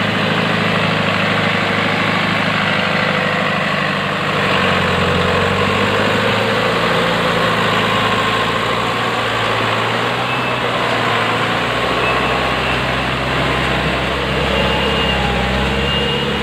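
Heavy truck's engine running under load as it crawls through deep mud, its wheels churning and splashing muddy water; the engine note shifts a couple of times.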